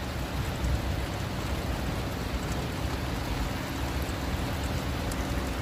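Heavy rain falling steadily on a river and around the microphone, an even hiss with a low rumble underneath and scattered drops ticking close by.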